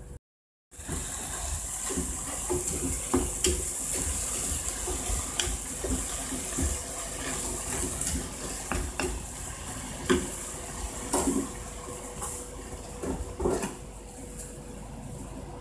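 Chinese cabbage and chikuwa simmering in a frying pan: a steady hiss of bubbling liquid and sizzling, with scattered short knocks and scrapes of utensils against the pan. The hiss drops away near the end.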